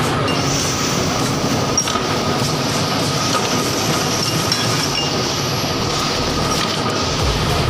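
Steady, loud clattering and rattling of forging machinery on a bolt-head production line, with a faint high steady whine over the din.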